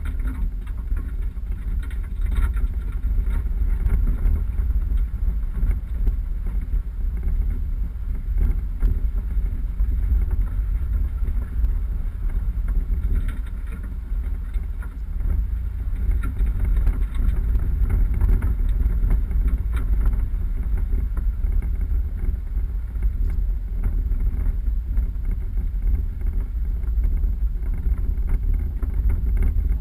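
Four-wheel-drive vehicle driving off-road: a steady low rumble of engine and tyres, with scattered faint knocks from the rough ground.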